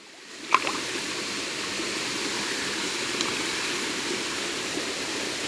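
Shallow stream water rushing and splashing over rocks, close to the microphone. It comes in about half a second in, right after a short knock, and then runs steadily.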